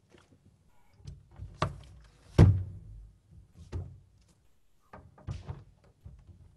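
Knocks and thuds of a hardcover book and a folder being handled and set down on a grand piano and its music desk, the loudest a heavy thump about two and a half seconds in.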